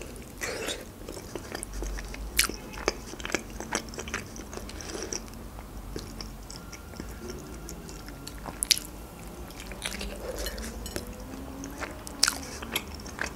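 Close-up chewing and biting sounds of a person eating a boiled Georgian khinkali dumpling, with scattered sharp mouth clicks.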